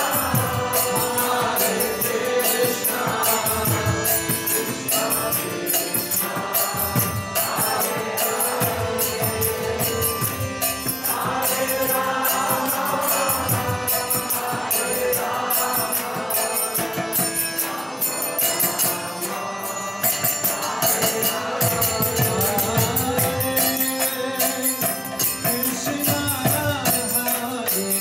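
Kirtan: a man's voice chanting a devotional melody in phrases over a pump harmonium's sustained chords. A hand drum and small hand cymbals keep a steady beat underneath.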